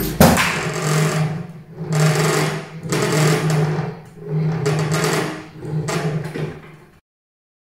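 Amber B1 7-axis robot arm's joint motors whirring through a run of fast moves, in about five bursts of roughly a second each, opening with a loud knock and clatter as the swinging arm strikes something. The sound cuts off suddenly about seven seconds in.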